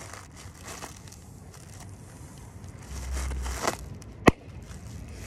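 Light scraping and rustling of something being pressed by hand, a brief low rumble, then a single sharp, loud pop about four seconds in as the item bursts.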